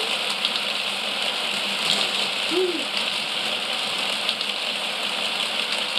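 Motorised building-brick roller coaster (Mould King 11012) running: its electric motors and plastic mechanism give a steady whirring rattle, with a few light clicks from the parts.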